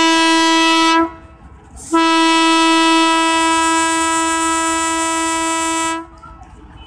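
Diesel locomotive horn sounding a single steady tone: a short blast of about a second, then after a brief pause a long blast of about four seconds, as the train approaches the station.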